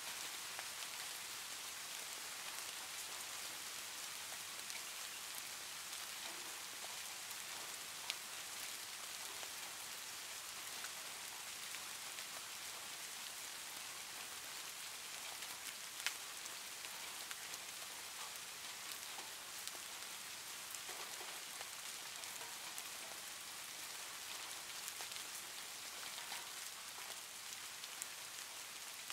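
Soft rain ambience: a steady hiss of rain with a fine patter of drops, and two sharper ticks about eight and sixteen seconds in.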